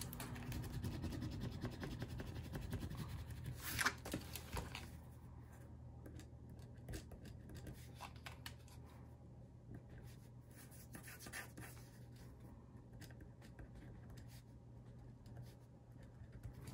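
Pen writing on paper: faint scratching strokes, with a brief louder scuff of handling about four seconds in.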